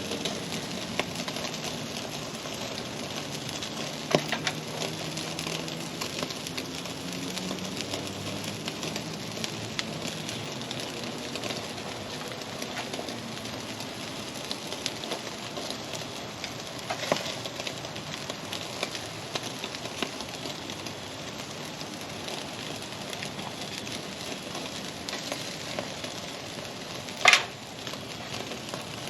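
Ribeye steak sizzling on a hot charcoal grill grate: a steady hiss with scattered crackles and pops of fat. A single sharp snap about 27 seconds in.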